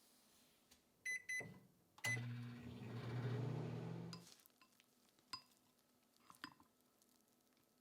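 Microwave oven being set and started: two short electronic beeps from its buttons, then a click and a steady low hum as it runs for about two seconds before stopping. A few faint clicks follow.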